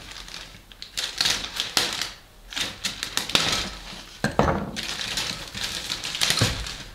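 Clear plastic bag crinkling as it is opened and handled, with the plastic sprues of a model kit clattering against each other inside, and a couple of sharper knocks in the second half.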